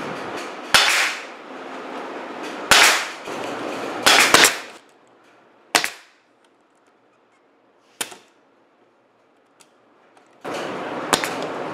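Pneumatic nailer firing about seven sharp shots, unevenly spaced, driving fasteners through a plywood drawer bottom into the frame. A steady noisy running sound lies under the first few seconds, cuts out, and comes back abruptly near the end.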